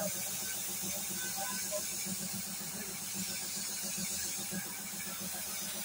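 Compressed-air paint spray gun hissing steadily as it sprays paint onto a car's body panel, over a low hum.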